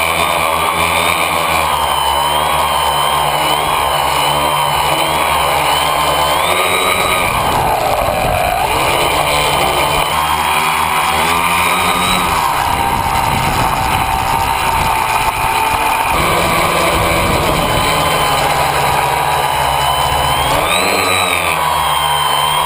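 A tricopter's three motors and propellers buzzing loudly, heard from a camera on the craft. The pitch rises and falls with the throttle: it drops about eight seconds in, lifts again around twelve seconds, and climbs near the end.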